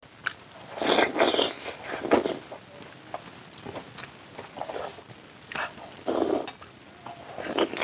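Close-up eating sounds: a man chewing big hand-fed mouthfuls of oily chicken chow mein and curry. The mouth noises come in irregular loud bursts, strongest about a second and two seconds in, then again around six seconds and near the end.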